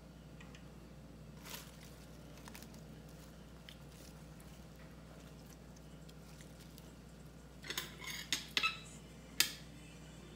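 Metal chopsticks clicking and clinking against dishes: a single click early, then a quick cluster of sharp clinks about eight seconds in and one louder clink near the end, over a faint steady hum.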